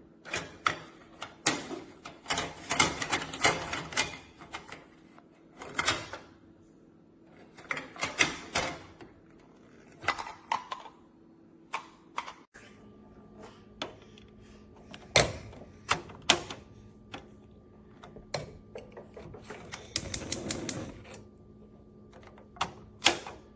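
Plastic stove knob covers being handled: a long run of sharp clicks and snaps in irregular clusters as the hinged lids are flicked open and snapped shut.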